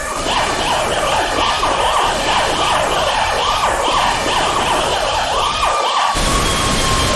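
A siren-like warbling tone, rising and falling about three times a second. About six seconds in it cuts off suddenly into a steady hiss with a single held tone.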